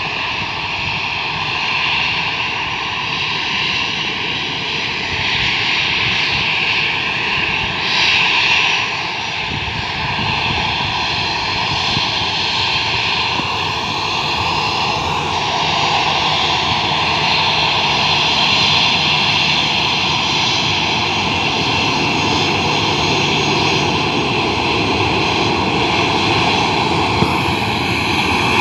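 Ryanair Boeing 737-800's twin CFM56-7B jet engines at taxi idle, a steady whine and rush that grows slightly louder in the second half as the aircraft comes by.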